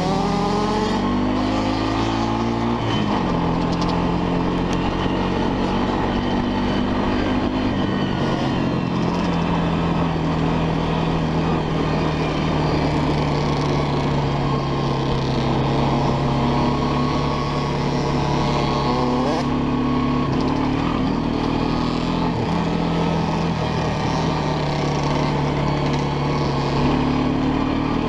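Honda FourTrax ATV engine under way: its pitch climbs as it accelerates over the first few seconds, then holds steady at cruising speed.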